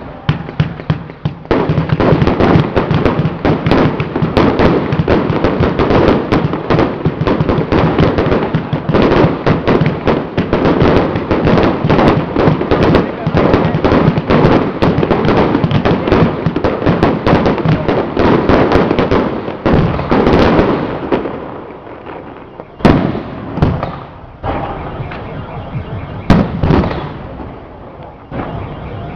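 Strings of firecrackers going off in a dense, continuous crackle of rapid sharp bangs for about twenty seconds. The crackle then thins out to a few separate loud bangs.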